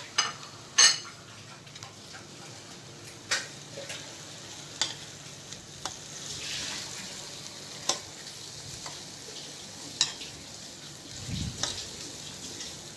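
Onions and spice powders frying in oil in a stainless steel pot, sizzling steadily while a steel ladle stirs them. Sharp clicks and scrapes of the ladle against the pot come every second or two.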